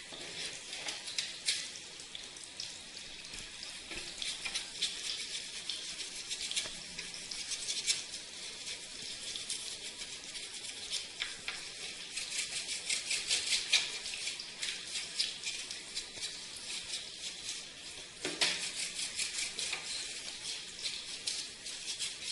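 Water spray hitting air-conditioner parts during a wash, heard as a steady crackling hiss with brief louder spurts.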